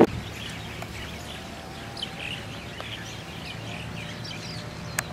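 Small birds chirping and twittering over a faint steady background hum, with one sharp click near the end.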